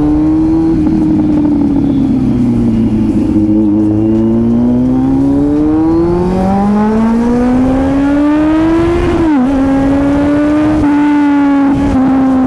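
Kawasaki Z900 inline-four engine under way, its pitch rising and falling as the throttle opens and closes, with a quick sharp dip about nine seconds in.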